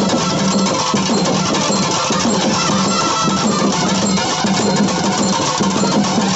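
Street band of long brass horns playing a melody together over cylindrical drums beaten with sticks, with a steady beat.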